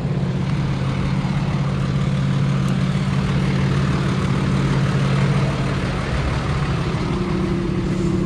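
Diesel engine of a Hino tow truck idling steadily at close range, its note shifting slightly near the end.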